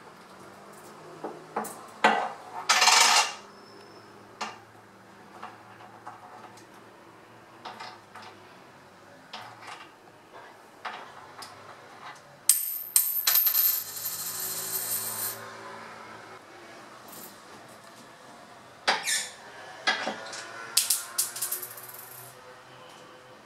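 Metal coins clinking and clattering on a wooden tabletop as a masked lovebird picks them up in its beak and drops them: scattered sharp clinks, with a longer ringing rattle about halfway through.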